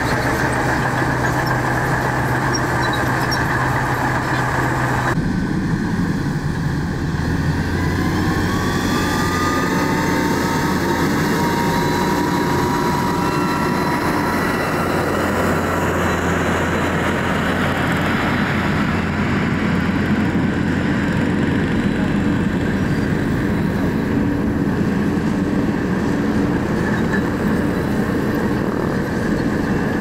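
Heavy earthmoving machinery with diesel engines running steadily under load. The sound changes abruptly about five seconds in, and a few seconds later a rising whine comes in over the engine hum.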